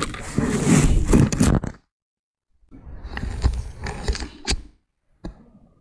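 Rustling of a jacket and gloves and small clicks of a metal hook and clip as hands rig a pike tip-up line. The noise twice cuts off to dead silence.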